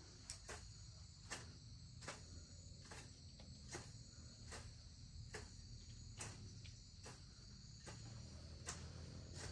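Faint, steady high-pitched insect trill, with faint sharp clicks about every second.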